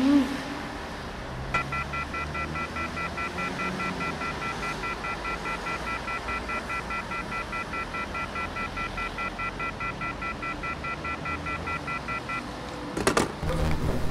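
Telephone off-hook warning tone: several high tones beeping rapidly on and off at an even rate. It starts about a second and a half in and stops near the end. A few sharp clatters follow just before the end.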